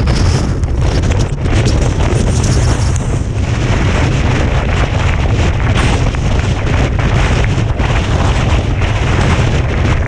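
Strong wind buffeting the microphone: a loud, steady low rumble with a rushing hiss over it, and skis scraping over wind-packed snow.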